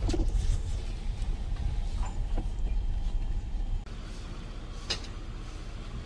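Low rumble of a car heard from inside the cabin while driving, with a few light knocks. About four seconds in it cuts off to a quieter steady background.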